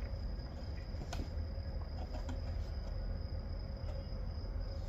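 Crickets trilling steadily over a low rumble of wind on the microphone, with a faint click about a second in.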